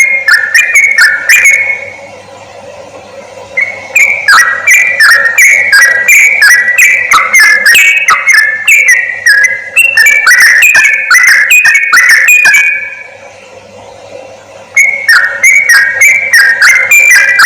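Yellow-vented bulbul (crucuk/trucuk) singing, a lure recording: quick bubbling, chattering notes in long rapid phrases. The song breaks off twice for about two seconds, at about two seconds in and again near thirteen seconds.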